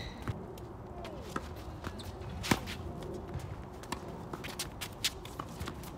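Tennis rally on a hard court: a ball struck by rackets with sharp pops, the loudest about two and a half seconds in and another near the end, and footsteps scuffing on the court between shots.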